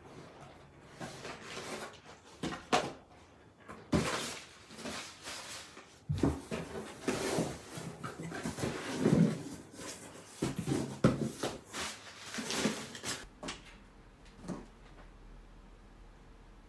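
Cardboard shipping box being unpacked by hand: irregular rustling of the flaps and small cardboard product packs knocking and sliding against the box and a wooden table, stopping about 13 seconds in.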